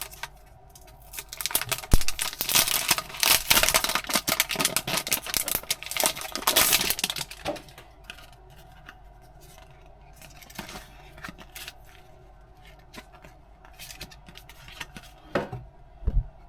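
Packaging being handled and torn: dense crinkling and tearing for several seconds, then scattered light clicks and taps, with a couple of louder knocks near the end.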